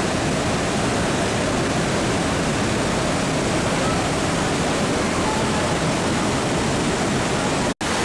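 Manavgat Waterfall, a broad low cascade of river water, rushing in a steady, loud, unbroken wash of noise. The sound drops out for an instant near the end.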